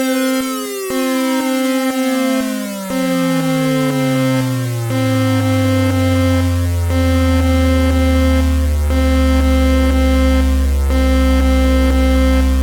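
Synthesized emergency-alert intro sound: a steady electronic tone pulsing with a short break about every two seconds, over many falling pitch sweeps that slide down into a loud, low sustained drone building from about halfway through.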